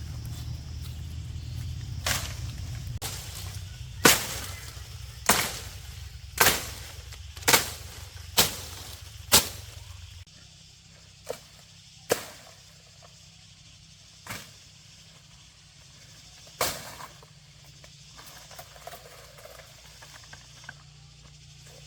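A series of sharp, hard knocks, about a dozen, each with a brief ring. They come roughly once a second for the first ten seconds, then slower and more spread out.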